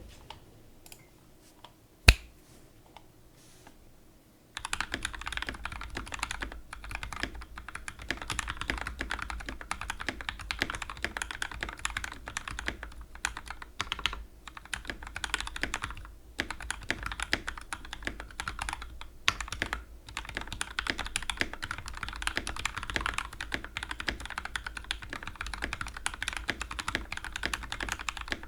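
BM60 mechanical keyboard with an aluminum plate, Gateron Ink Black V2 linear switches lubed with Krytox 205g0 and filmed, and double-shot PBT Cherry-profile keycaps, being typed on. A few scattered keystrokes and one sharp knock about two seconds in, then from about four and a half seconds in fast continuous typing with a few brief pauses.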